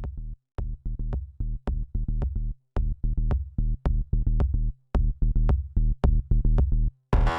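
Electronic music with a steady pulsing bass beat. About seven seconds in it opens out into a fuller, brighter section.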